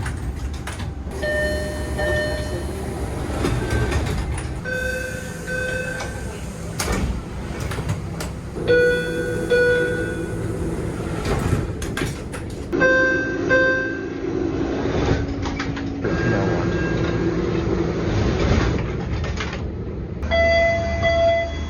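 A run of MBTA Orange Line subway car door chimes, about six short electronic chimes in turn, several of them two equal beeps. A steady train rumble sits beneath them.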